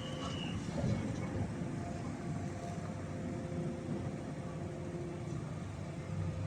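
Heavy construction machinery running steadily: a continuous diesel engine rumble with a faint steady hum, without distinct blows.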